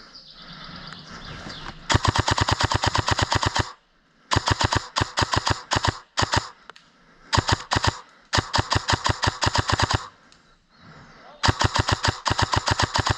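Airsoft rifle fired on full auto in six rapid bursts of evenly spaced shots. The bursts last from half a second to about two seconds, with short pauses between them; the first starts about two seconds in.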